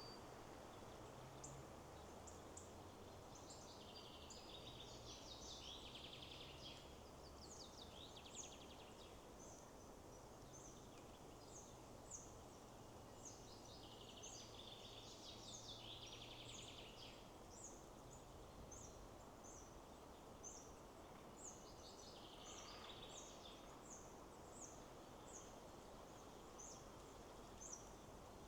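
Faint forest birdsong over a steady rush of wind in the trees. A short high chirp repeats about once a second through most of it, and bursts of quicker trilling song come a few times.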